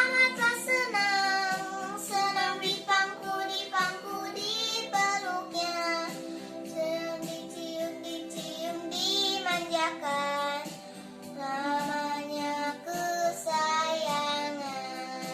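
A child singing a melody over backing music.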